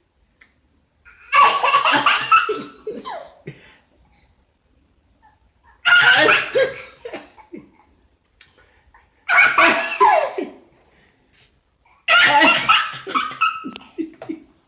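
People laughing in four separate bursts, each a couple of seconds long, with short quiet gaps between them.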